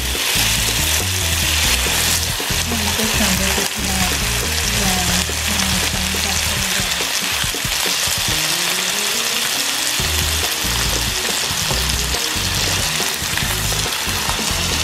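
Bone-in, skin-on chicken thighs sizzling steadily as they sear over medium-high heat in a nonstick frying pan, just turned to brown the second side. Background music with a bass line plays along.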